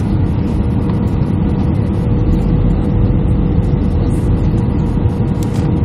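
Steady cabin noise of a jet airliner heard from a seat over the wing: jet engines and rushing airflow on the approach with flaps extended. It is a low, even rumble with a thin steady tone above it.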